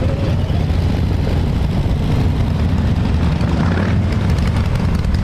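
Motorcycle engine running with a deep, steady rumble, added as a sound effect that cuts off abruptly near the end.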